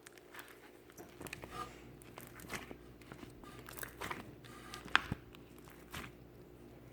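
Slime being pressed and stretched by hand, making irregular small clicks, crackles and pops, with one sharp pop about five seconds in.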